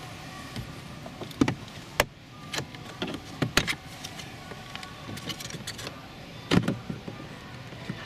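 Plastic snaps and clicks as a plastic trim removal tool pries the power window master switch panel off a Toyota RAV4 door armrest, its retaining clips popping loose. The sharp snaps are scattered with lighter ticks of plastic on plastic between them, the loudest about a second and a half, two, three and a half and six and a half seconds in.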